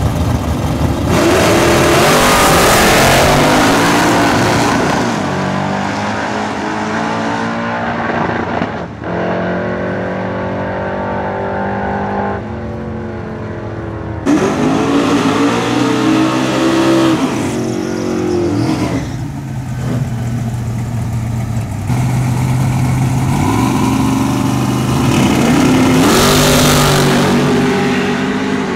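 Drag race car engines revving and accelerating hard, their pitch rising and falling several times, loudest in the first few seconds and again near the end.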